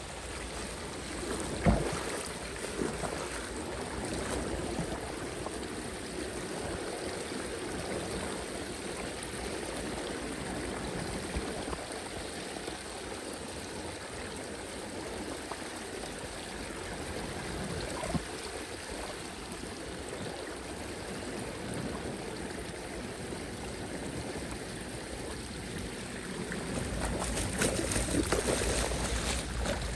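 Floodwater rushing and gurgling steadily down a street storm-drain grate partly clogged with litter and leaves. Near the end it turns louder, with splashing as a rake is worked in the water at the grate.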